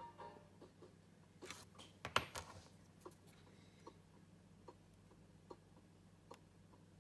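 A few sharp clicks and a tap about two seconds in, then faint, evenly spaced ticks a little more than once a second, over a steady low hum.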